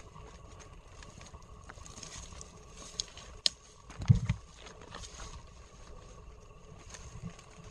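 Footsteps and brush rustling as a person walks through woods, with a couple of sharp clicks about three seconds in and a dull low thump just after four seconds.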